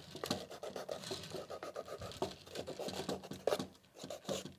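Folded sandpaper rubbing in quick, irregular scratchy strokes over carved wood, lightly sanding out the marks left by a carbide burr.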